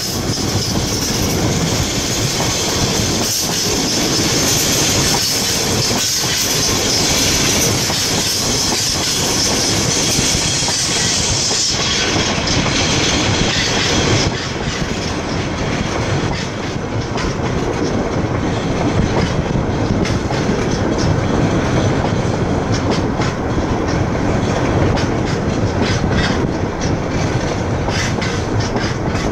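Freight train of hopper wagons running through at speed: a steady rumble with the wheels clicking over rail joints. A high hiss over it fades around 12 to 14 seconds in.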